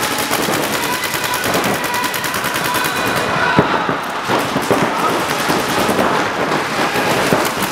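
Paintball markers firing rapid strings of shots, many a second, in a large indoor hall.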